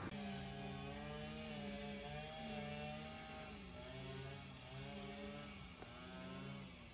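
A motor engine running with a steady pitched drone, its pitch dipping briefly twice, a little past halfway and near the end.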